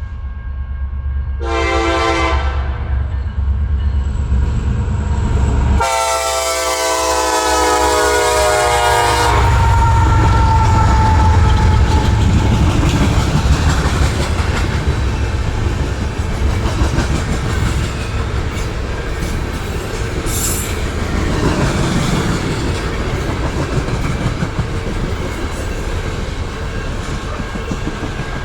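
Diesel locomotive air horn on a passing BNSF coal train: a short blast about a second and a half in, then a long blast from about six to nine seconds that glides lower in pitch as it ends. The locomotives and loaded coal cars rumble and clatter past on the rails throughout.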